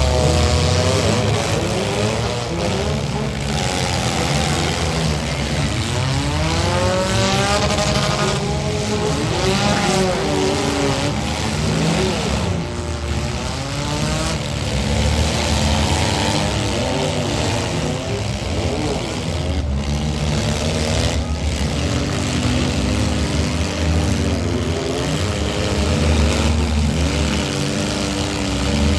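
Several demolition-derby compact cars' engines running and revving at once, their pitches rising and falling as the cars accelerate and back off.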